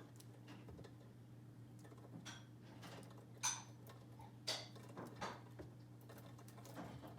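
Faint, irregular small taps and clicks over a steady low hum, the two loudest about three and a half and four and a half seconds in.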